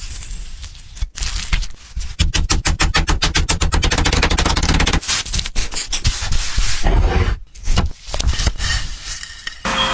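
A fast run of sharp, evenly spaced knocks, about eight a second for a few seconds, with irregular knocks and scraping before and after.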